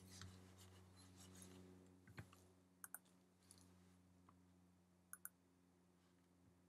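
Near silence: a faint steady electrical hum with a few faint scattered clicks, two of them in quick pairs.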